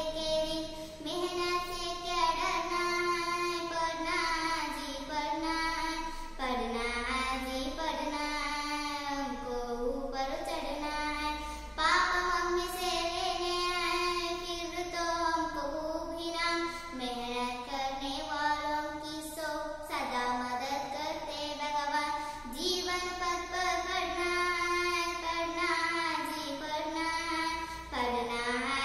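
A young girl's solo voice singing a Hindi poem to a simple melody, line by line with short breaths between phrases.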